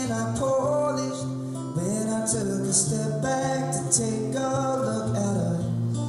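A man singing live, accompanied by his own strummed acoustic guitar.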